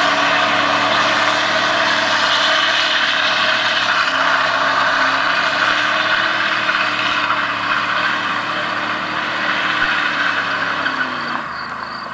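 Pickup truck doing a burnout: the engine is held at high revs while the tyres spin and smoke. The sound is steady, then eases and fades near the end.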